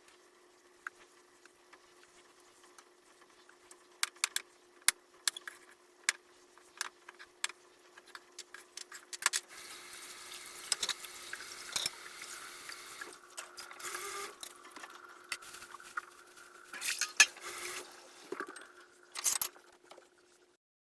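Small hard objects clicking and clattering as they are handled, in scattered sharp knocks, with a stretch of steady hiss in the middle. A faint steady hum runs underneath until the sound cuts off near the end.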